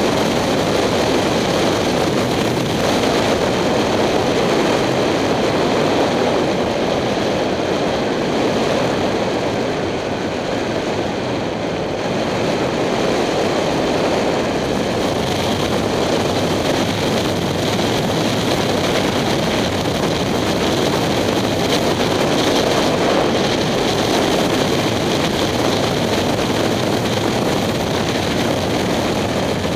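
Wind rushing over a helmet-mounted camera on a moving 2007 Kawasaki Ninja 250, with the bike's parallel-twin engine running underneath at road speed. The noise is steady and eases slightly about ten seconds in.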